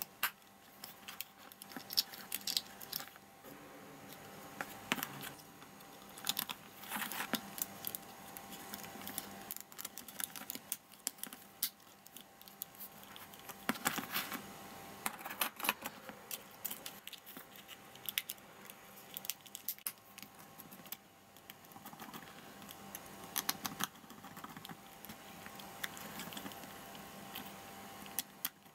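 Irregular small clicks and taps of the plastic and metal parts of a Nikon Coolpix S7000 compact camera being handled and fitted together during reassembly.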